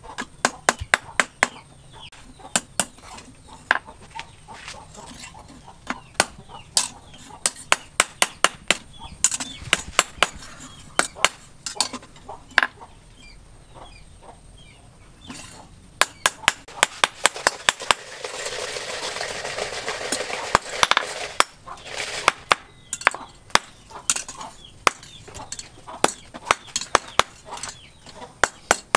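Hand hammer striking the steel prongs of a six-hook fishing grapple held in tongs on a small post anvil: quick runs of sharp metal-on-metal blows with short pauses. About two-thirds of the way through, a few seconds of steady rushing noise sit under the blows.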